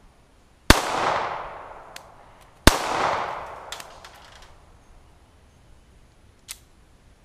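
Two 9mm pistol shots about two seconds apart, each followed by a long echo that fades over a second or more. A few light clicks follow, with a sharper click near the end.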